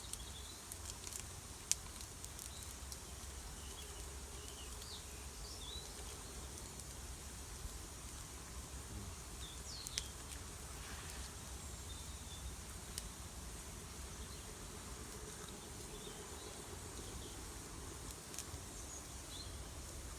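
Quiet outdoor ambience: a steady low rumble, with scattered faint high chirps and a few sharp clicks.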